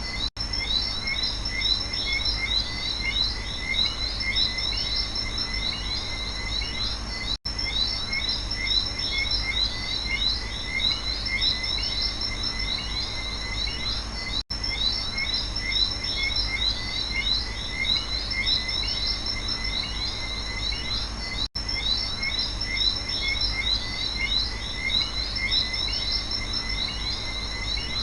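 Night rainforest chorus of frogs and insects calling continuously in dense, rapid chirps, over a low steady rumble. The sound cuts out for an instant about every seven seconds.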